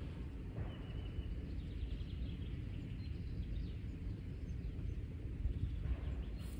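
Rural outdoor ambience: a steady low rumble of wind on the microphone, with a bird's short chirp about a second in.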